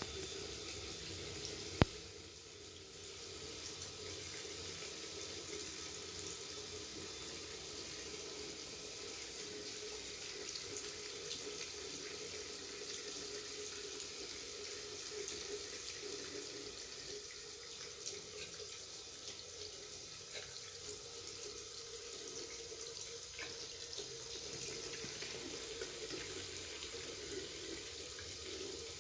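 Water running steadily from a tap into a sink, with one sharp click about two seconds in.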